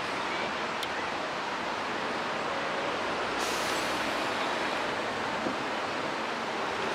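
Steady, even rushing of a shallow city stream's water running over its stone bed, blended with the constant background of the surrounding city.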